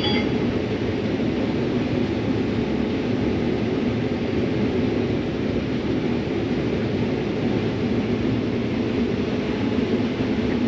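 Combine harvester running steadily while harvesting corn, heard from inside the cab: a constant low mechanical drone with no change in speed.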